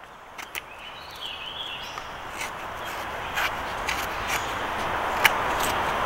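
Steady rush of a shallow creek's running water, growing gradually louder, with a few light clicks scattered through it.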